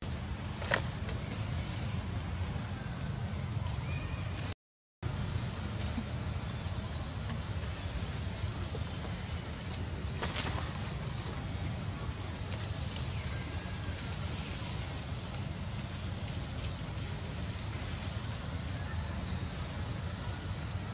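High-pitched insect chorus droning steadily and swelling and fading about once a second, over a steady low rumble. The sound drops out completely for a moment about five seconds in.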